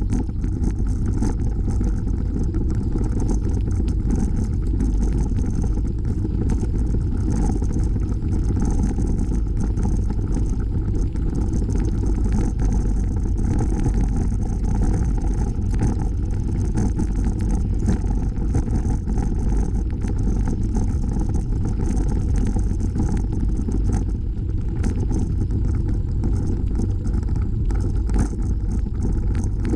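Steady low rumble of wind buffeting the microphone and tyres rolling over the trail, picked up by a camera riding on a moving bicycle.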